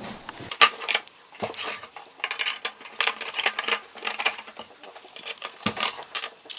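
Plasma-cut 1.5 mm steel sheet parts clinking and clattering together in irregular sharp clicks as a side panel is pushed onto the tabs of a steel box and a nail is set into a tab hole.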